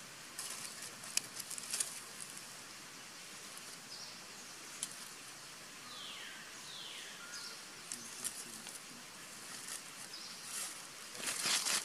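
Forest-floor ambience with a steady high background hiss and scattered clicks and rustles of dry leaves from a macaque moving about, two short falling calls about six seconds in, and louder rustling of dry leaves near the end as the macaque walks off.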